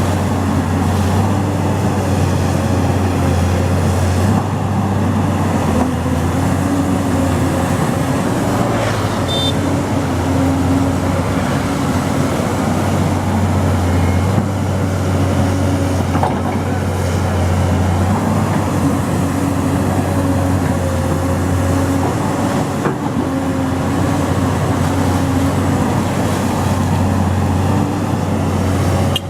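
Excavator's diesel engine running steadily under working load, its low drone swelling and easing every few seconds as the hydraulics are worked.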